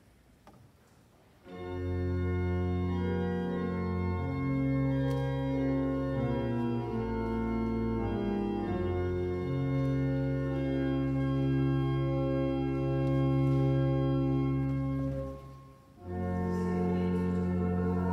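Church organ playing the introduction to a hymn in sustained, changing chords, starting about a second and a half in. The playing breaks off briefly near the end, then starts again.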